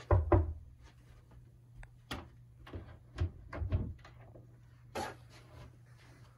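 A run of irregular knocks and thumps, like wood being handled or bumped: a loud double thump right at the start, a cluster of smaller knocks a couple of seconds in, and a sharper one near the end, over a faint steady low hum.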